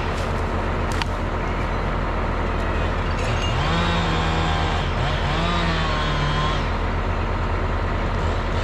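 Diesel forestry machines running steadily. The engine note rises and holds higher twice, for a second or two each time, as the engine revs up under load.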